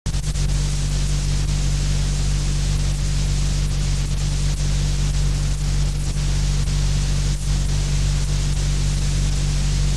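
Steady electrical hum with strong low harmonics under a constant hiss, with a few faint clicks: the noise floor of an old recording's audio track. It starts abruptly out of silence.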